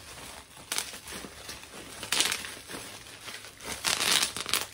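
Bubble wrap being twisted and wrung by hand, its bubbles popping in crackling bursts: a short burst under a second in, another a little past two seconds, and the longest and loudest near the end.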